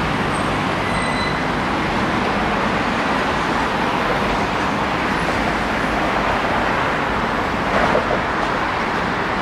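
Steady road traffic noise from a busy multi-lane road: a continuous wash of passing cars and motor scooters.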